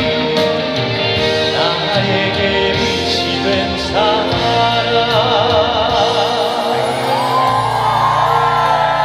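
Live band playing the close of a ballad, with a male voice holding long notes with vibrato over the chords in the second half.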